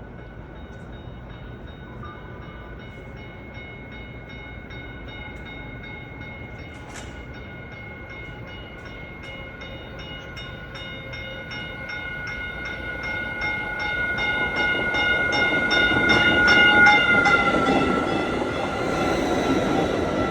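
Caltrain commuter train approaching and passing, its horn sounding as steady tones that dip slightly in pitch near the end. Its running noise grows louder over the last several seconds. Through the middle a regular ringing beats at about three strokes a second.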